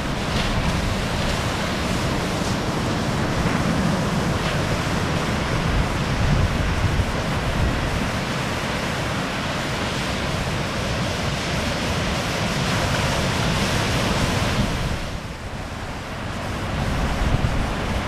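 Ocean surf breaking and washing in, a steady rushing noise with wind rumbling on the microphone; it drops briefly about fifteen seconds in.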